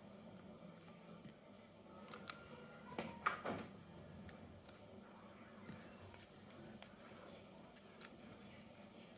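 Faint clicks and rustles of something being handled at close range, with a short cluster about three seconds in; otherwise almost silent.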